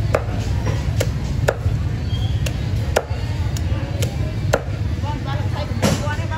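Cleaver chopping a fish into steaks on a wooden chopping block: sharp chops about every half second, somewhat irregular, over a steady low rumble.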